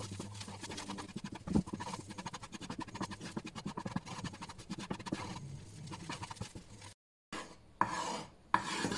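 A metal spoon scrapes and stirs dry flour around a dry nonstick frying pan as the flour toasts, in a fast, continuous run of short scraping strokes. About seven seconds in there is a brief silence, then slower, separate and louder scrapes.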